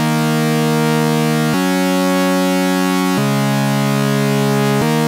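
Xfer Serum software synthesizer playing a raw, unfiltered patch of a square-wave and a saw-wave oscillator layered together. It plays a basic sequence of held chords, each about a second and a half long, changing with no gap between them.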